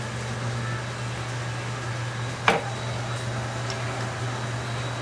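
Steady low hum of kitchen equipment, with a single sharp metallic clink about halfway through as a metal tool strikes the waffle-ball iron's plate.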